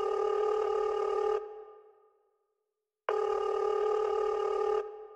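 Telephone-ring sound in a dubstep track: two rings of about a second and a half each, separated by a silent gap of about the same length, each fading briefly as it stops.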